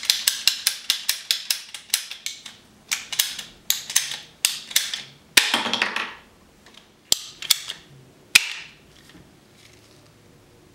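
Husky ratcheting PVC cutter clicking rapidly as its handle is pumped on a PVC pipe, then slower clicks. About halfway there is a longer crunch as the blade cuts through the pipe, followed by a few more clicks and a last sharp snap.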